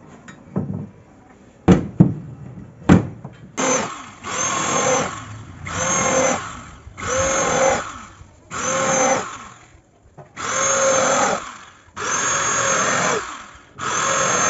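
Corded electric drill run in about seven short bursts, each about a second long and rising in pitch as the motor spins up, while working at the steel mounting rail of a hydraulic bed frame. A few sharp knocks come before the first burst.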